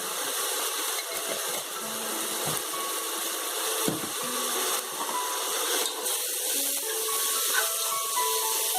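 Vegetables and sauce frying in a pan: a steady sizzling hiss, with a single knock about four seconds in.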